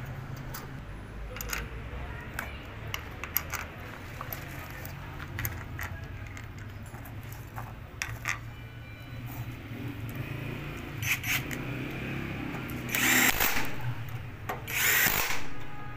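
Scattered metallic clinks and knocks of engine parts and bolts being handled, then a cordless drill run twice near the end, each time for about a second, driving bolts into the engine's crankcase cover.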